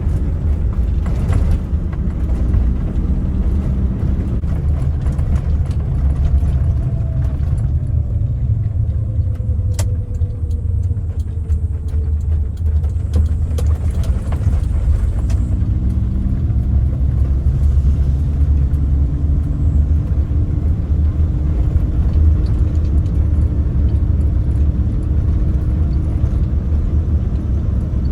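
Suzuki Jimny JA11's small three-cylinder turbo engine running while the vehicle is driven, over a heavy low rumble. Its pitch falls for several seconds partway through, then climbs again and settles to a steady drone.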